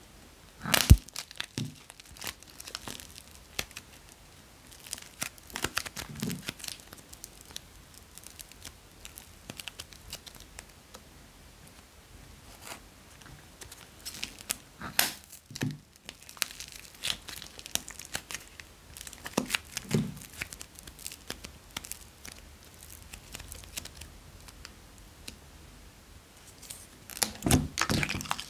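Small plastic packets of clay being snipped open with scissors and crinkled and torn as the clay is squeezed out, in scattered sharp crackles and clicks, with a few louder snaps.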